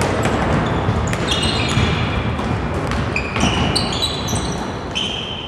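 A basketball bouncing on an indoor court, with many short, high sneaker squeaks on the floor from about a second in.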